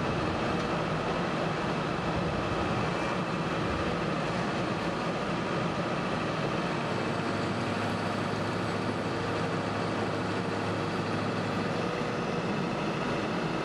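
Compact tracked sonic drill rig's engine running steadily, with a low steady hum joining in about halfway through.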